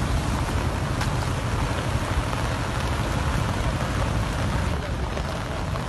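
Steady rush of heavy rain and flowing floodwater from a cloudburst, with wind rumbling on the microphone.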